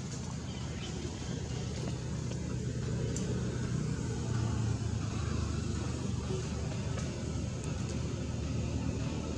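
Steady low rumble of a running motor vehicle, slowly growing louder.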